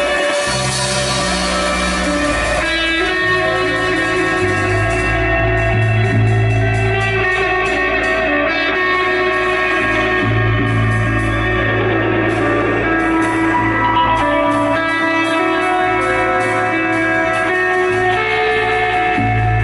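Live rock band playing an instrumental passage: guitar lines over a steady bass line.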